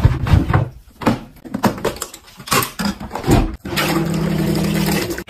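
Plastic portable mini washing machine being pulled out from under a cabinet and set down: a run of knocks, scrapes and bumps. About three and a half seconds in, a steady hum takes over.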